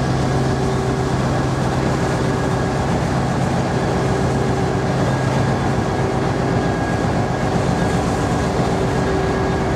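Harbour tug's diesel engines running under load in a steady, unbroken drone while it pushes against a ship's hull during berthing.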